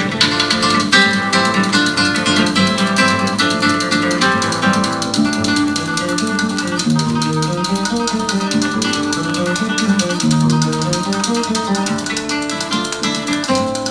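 Guitar music with quick plucked notes and a steady percussive beat, played through a vintage Altec loudspeaker: a 1505 horn with a 288 two-inch compression driver, over a 416 woofer.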